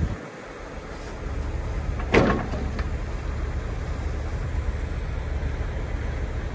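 Steady low rumble of an idling truck engine, with one sharp clank about two seconds in.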